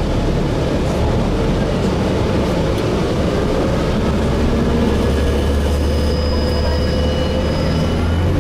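Inside a Gillig Phantom transit bus in motion: a steady low drone from the diesel drivetrain and Voith automatic transmission, mixed with road noise. About three seconds in, faint whining tones come in, one rising slightly before holding steady.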